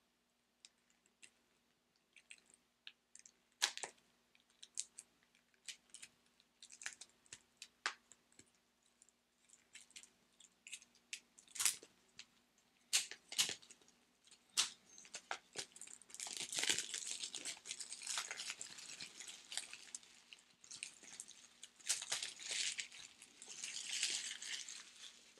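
Plastic shrink-wrap being picked at and peeled off a Blu-ray case. At first there are scattered clicks and crackles as fingernails work at the wrap along the case edge. Through the second half comes a long spell of dense crinkling and tearing as the wrap comes away and is crumpled in the hand.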